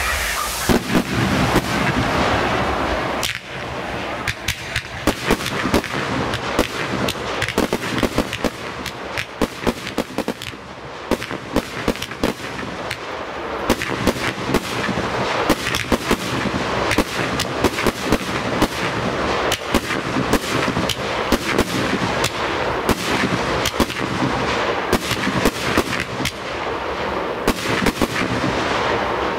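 Professional firework display: a dense, rapid string of bangs from bursting aerial fireworks, several a second, with a hissing rush in the first few seconds.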